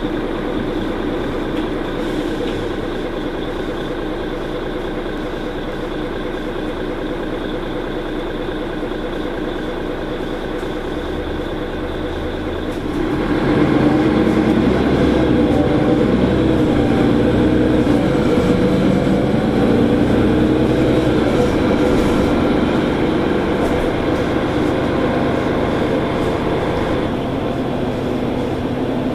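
Mercedes-Benz Citaro C2 G articulated bus with a ZF Ecolife automatic gearbox, running steadily at a low level, then about thirteen seconds in getting louder as it accelerates. A drivetrain whine rises and falls in pitch, then eases off a little near the end.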